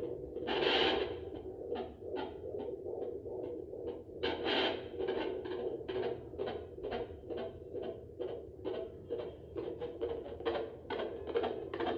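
Home fetal Doppler's loudspeaker giving out the baby's heartbeat as a fast, regular whooshing pulse, about two and a half to three beats a second, over a steady rushing background. Two louder, longer swishes break in, near the start and about four seconds in.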